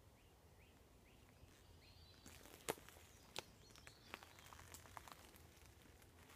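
Quiet woodland: faint bird chirps in the first couple of seconds, then a run of short, sharp clicks from about halfway, the first the loudest.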